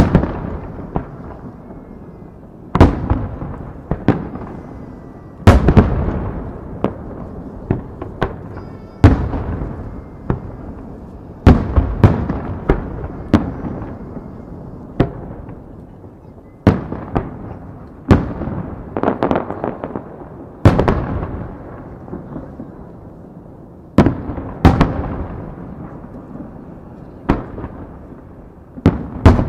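Aerial firework shells bursting one after another, about twenty sharp bangs at uneven intervals of one to three seconds. Each bang fades out in a long rumble.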